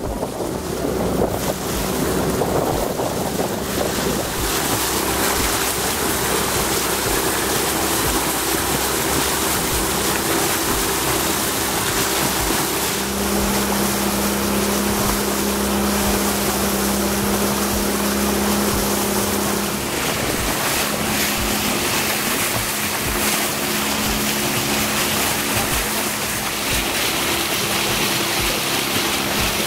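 Small fishing boat's motor running steadily under way, with water rushing past the hull and wind buffeting the microphone. The engine hum grows stronger for several seconds in the middle.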